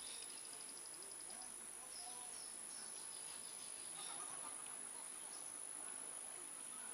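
Faint outdoor riverbank ambience: scattered short bird chirps and insect trilling over a steady high whine.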